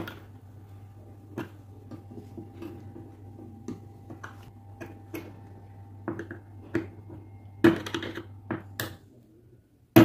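Small metal clicks and scrapes of a screwdriver prying at the bushing retainer inside an electric fan motor's end bell, working it loose, with a quick run of clicks near the end. A faint steady low hum underneath stops near the end.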